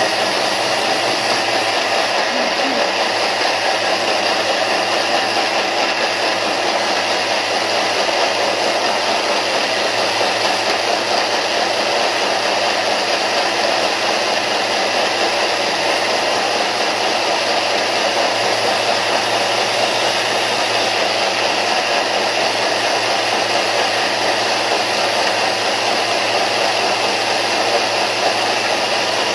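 Thermomix blending oats, dates and coconut water into oat milk at high speed: a loud, steady whir of the motor and churning liquid in the steel bowl.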